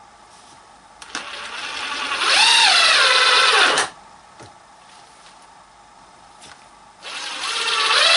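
Festool TI 15 cordless impact driver running with its impact mechanism switched off, driving a screw into wood: a steady motor whine that climbs in pitch, sags near the end and stops about four seconds in, then starts again about seven seconds in. No hammering of the impact mechanism is heard.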